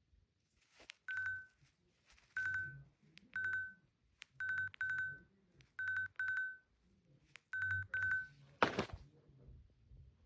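Apple Watch giving short electronic beeps at one pitch, each starting with a click and carrying a low buzz, about nine in irregular singles and pairs as it is pressed. A brief loud rustle near the end.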